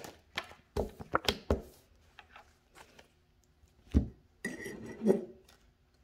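Irregular sharp taps and clicks of objects being handled on a hard surface, with a heavier knock about four seconds in.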